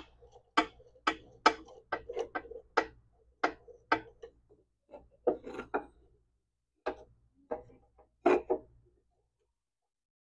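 Irregular series of sharp clicks and knocks, roughly two a second with a short pause past the middle, from hand-tool work on a rusted miter saw part being forced free.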